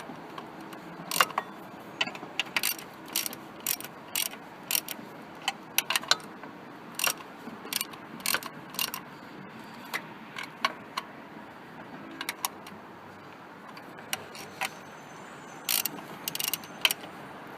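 Ratchet socket wrench clicking in short, irregular runs of strokes as the water pump bolts are done up evenly so the O-ring seats evenly.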